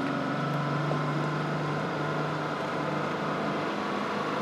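Boat's outboard motor running steadily, with an even, unchanging pitch.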